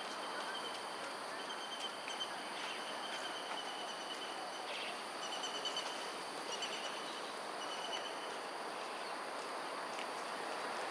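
Outdoor ambience: a steady high insect drone over even background noise. Short runs of rapid, high chirping notes come every second or so.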